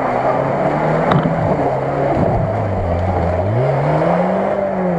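Lada Niva engine working under load in deep mud, its revs held, dipping, then climbing to a peak about four seconds in and dropping again, over a steady noisy churn. A sharp knock about a second in.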